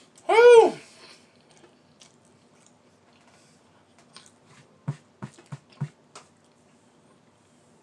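A short, loud high-pitched call that rises and falls in pitch, then quiet chewing with four soft low knocks near the end.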